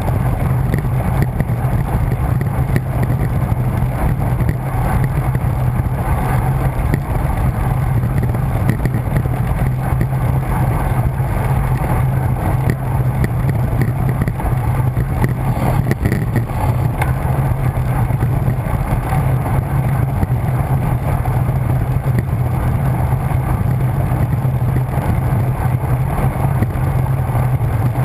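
Steady rush of wind buffeting a bike-mounted camera's microphone on a fast downhill ride, with a constant low drone under it.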